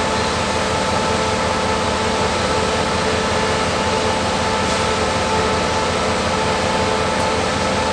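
CRRC CDA5B1 (QSY) diesel-electric locomotive standing at idle: a steady drone with a low rumble and several held hums.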